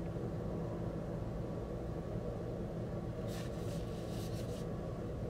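Steady low background hum. About three seconds in comes a brief cluster of crinkles lasting about a second, from the plastic shrink-wrap of a sealed vinyl LP being handled.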